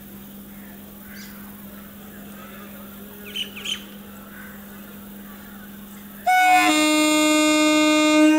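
An electric multiple unit (EMU) train's horn sounds one loud, steady-pitched blast of a little over two seconds, starting about six seconds in, as the train signals its departure. Before it there is a steady low hum and a few brief bird chirps.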